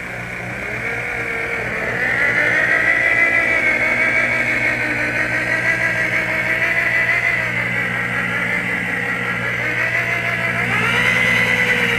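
Electric rotary polisher with a wool buffing pad running at a slow speed of around 1500 RPM, working compound into oxidized fiberglass. Its motor whine grows louder over the first couple of seconds and rises in pitch about eleven seconds in as the speed is bumped up.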